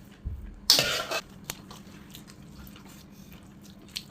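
Dishes and utensils being handled for a meal: a soft thud, then one short clatter about a second in, followed by a couple of light clicks over a faint steady hum.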